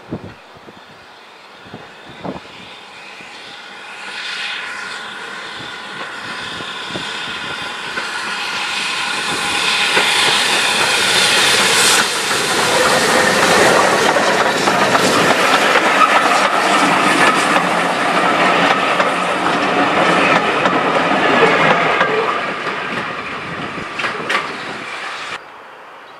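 Steam train drawing near and running past, its wheels clicking over the rail joints under a steady high ringing. It builds up over the first half, stays loud for some ten seconds, and cuts off abruptly near the end.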